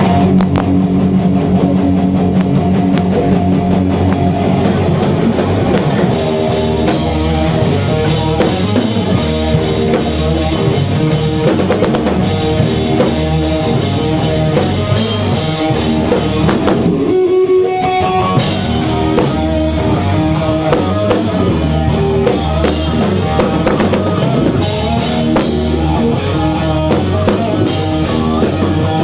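A heavy metal band jamming at full volume on distorted electric guitars, bass guitar and a drum kit with a steady pounding beat. About halfway through the band stops for a moment, leaving one held note ringing, then crashes back in.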